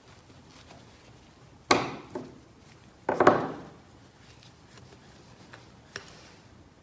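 Two sharp knocks about a second and a half apart, each followed by a fainter tap: a palette knife and other painting tools handled against a hard work surface, as in picking up or mixing paint.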